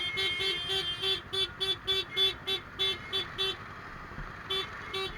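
Vehicle horns honking in quick short toots, about four a second, over a steady hum of traffic. A longer held horn sounds through the first second, the toots break off past the middle, and two more come near the end.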